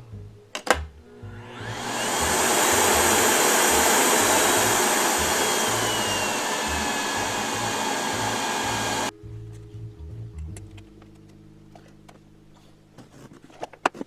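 Vacuum cleaner, rigged as a soldering fume extractor, switched on with a click: its motor spins up over about a second into a loud steady rushing whine, then stops abruptly about nine seconds in.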